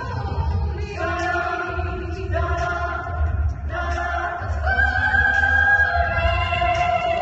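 A cappella vocal group singing in close harmony, with sustained chords that shift about once a second and no instruments.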